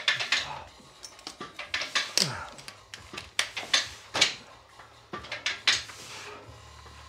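Metal gym weight plates clanking and clinking, a string of sharp metallic knocks, as a leg extension machine is worked and loaded.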